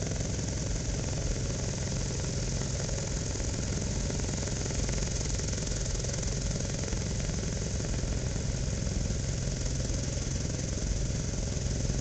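Single-engine tow plane's piston engine idling steadily on the runway before a glider tow launch, swelling slightly near the end.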